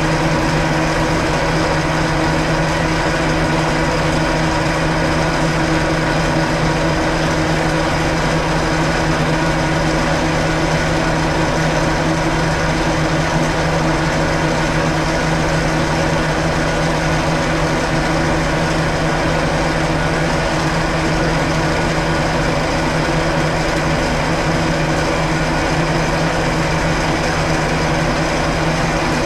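Milling machine running at about 340 rpm, its end mill cutting a 1 mm deep flat into a metal workpiece as the table is fed by hand: a steady machine hum with constant gear tones and cutting noise.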